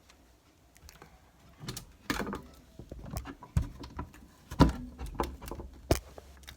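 Irregular knocks, clicks and rattles of a stuck closet door being tugged and worked open, starting about two seconds in.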